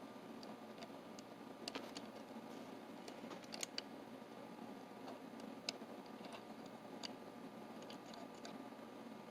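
Scattered small metallic clicks and taps of mortise lock parts being handled and moved, a handful spread over several seconds, over a faint steady room hum.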